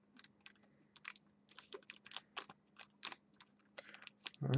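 Thin plastic card sleeve crinkling and crackling in quick, irregular small clicks as a trading card too thick for it is forced in.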